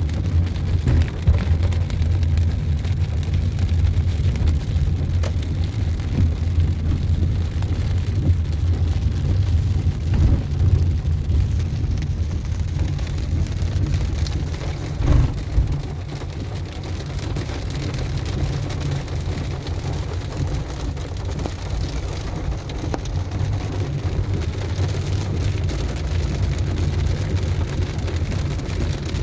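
Fairly heavy rain falling on a moving car, heard from inside the cabin over a steady low rumble of engine and road noise. A brief, louder low bump comes about halfway through.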